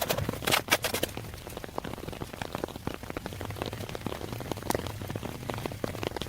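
Shovel working waterlogged mud: wet squelching and splashing with scattered drips and crackles, busiest in the first second, then thinning out.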